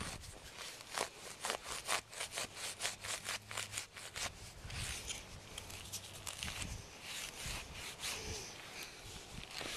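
Hand digging knife cutting down through grass turf and soil to dig a plug: a quick run of short sawing strokes, about three or four a second, for the first four seconds or so, then softer scraping and rustling of grass and dirt as the plug is worked loose.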